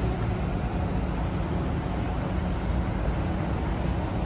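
Steady city road traffic with a double-decker bus passing close by, its engine running with a low rumble.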